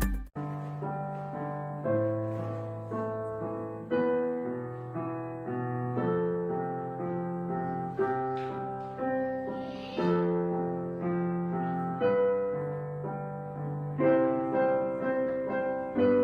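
Background music: a gentle piano piece of slow sustained notes and chords, each swelling then fading.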